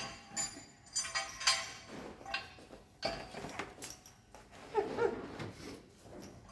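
Irregular light clinks and knocks of small hard parts being handled and set down on a workbench.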